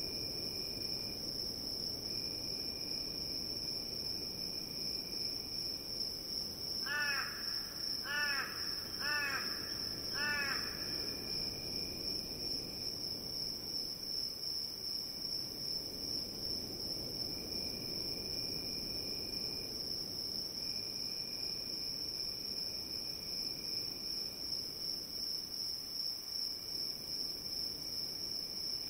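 Crickets trilling steadily in a continuous high chorus, with a second, lower insect trill coming and going. About seven seconds in, a crow gives four harsh caws, roughly one a second.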